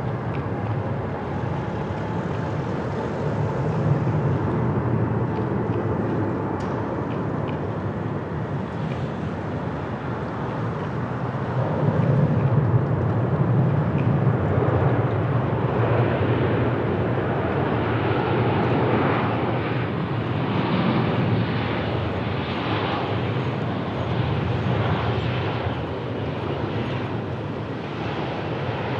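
Jet airliner engines running, loudest from about twelve seconds in, with a rough, fluttering rumble through the middle that eases off toward the end.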